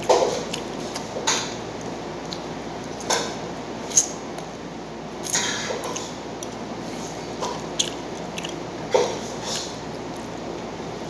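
A person eating: chewing and other mouth sounds, with a few short clicks of utensils against a plate, the sharpest about four seconds in.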